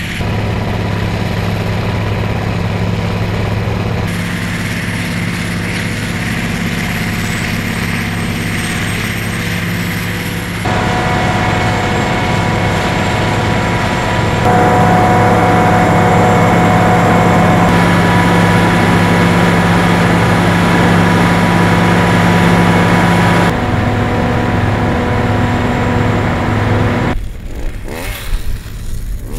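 Cog railway rotary snowplow working through deep snow: a steady, loud engine hum with a rushing layer of blown snow, louder from about halfway through.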